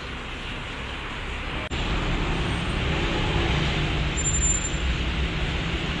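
Steady rumble of road traffic. A brief dropout comes just under two seconds in, after which the rumble is louder and fuller.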